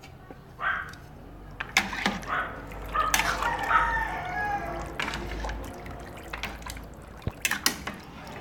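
A metal spoon stirring pasta through water that has not yet come to the boil in a metal pot: water swishing and sloshing, with several sharp clinks of the spoon against the pot, two close together near the end.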